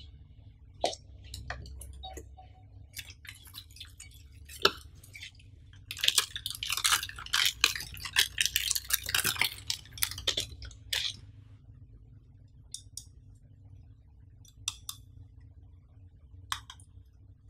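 Clear plastic bag crinkling and rustling as hands open it and pull an item out. The crinkling is densest and loudest in the middle stretch, with scattered clicks and taps before it and a few light taps near the end.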